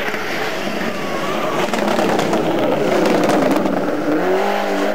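Rally car engine at speed, growing louder as the car comes closer, with a few sharp crackles. Its revs drop as it slows for the roundabout, then climb again about four seconds in as it accelerates out of the corner.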